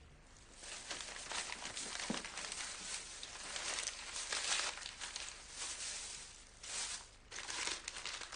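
A plastic bag crinkling and rustling in irregular fits as it is handled and opened, loudest about halfway through.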